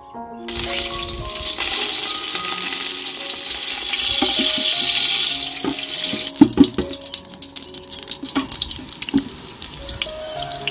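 Oil sizzling in a hot aluminium pot on a gas burner: a steady hiss, breaking into irregular crackling and popping about six seconds in as a sheet of flatbread is laid into the oil.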